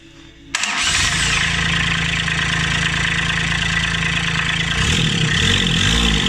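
Kubota D1105 three-cylinder diesel engine starting about half a second in and then running steadily, its pitch wavering up and down near the end.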